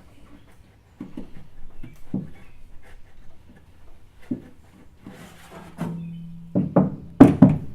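Light knocks and rubbing as sound-deadening mat is worked onto a steel car door. Near the end, a quick series of knuckle raps on the treated door skin sound as short, dull thuds: the damped panel no longer rings hollow.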